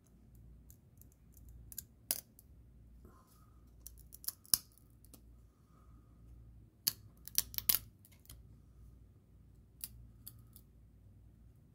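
Thin trading cards being pried apart and slid off a stack by hand, with scattered sharp clicks and snaps as cards that are stuck together come free: single snaps here and there and a quick run of several about two-thirds of the way through.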